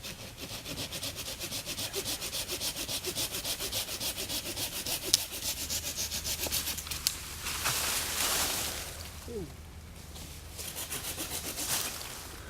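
Bahco Laplander folding pruning saw cutting through wood with quick, even back-and-forth strokes, about three to four a second. The strokes break off for a few seconds of louder rustling in the middle, then start again near the end.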